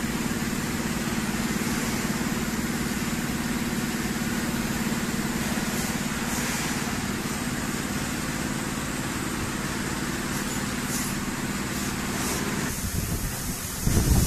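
Steady hum of running factory machinery, with a constant deep drone under a hissing noise; the drone drops away about thirteen seconds in, followed by a few deep knocks near the end.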